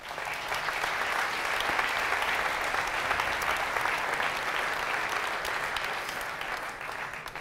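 Audience applauding, starting all at once and tailing off near the end.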